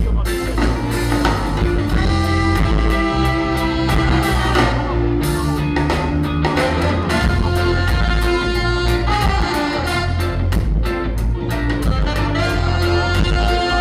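Live ska band playing an instrumental: a horn section of trombone, saxophones and trumpet over electric guitar, keyboard and drums, with a steady beat.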